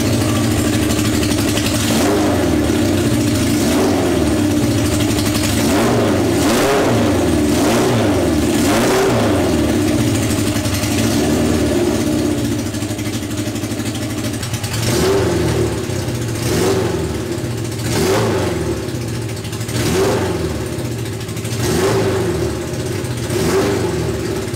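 Honda CB750 SOHC inline-four engine running, with its throttle blipped repeatedly so the revs rise and fall, more regularly in the second half; it cuts off near the end. The carburettors have just been synchronised and it is now running on all four cylinders.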